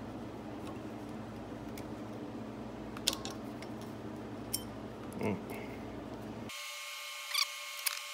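Light metal clicks and scrapes of small parts being worked by hand, as a C-shaped retainer clip is fitted into its groove in a 1940 Dodge lever arm shock absorber, over a steady low shop hum. A few isolated clicks come in the first half; after an abrupt change in the background about two-thirds of the way in, the clicks and scrapes come sharper and closer together.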